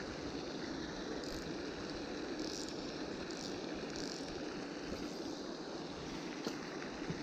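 Steady outdoor noise of wind on the microphone and rippling water, with a few faint short ticks.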